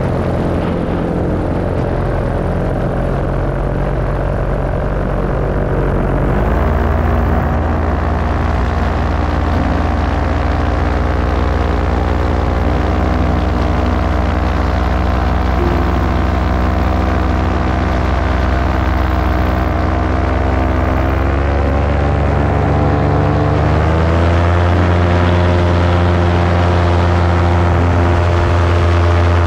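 Paramotor's two-stroke engine and propeller running steadily in flight, the pitch rising as the throttle is opened about six seconds in and again a little past twenty seconds.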